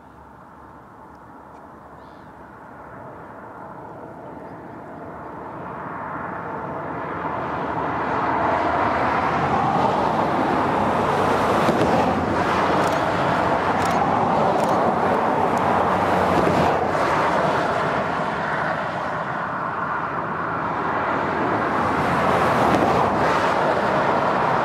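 Irish Rail 2600 class diesel railcar running across the causeway and viaduct. A steady rumble grows louder over the first eight seconds or so as it approaches, then holds loud.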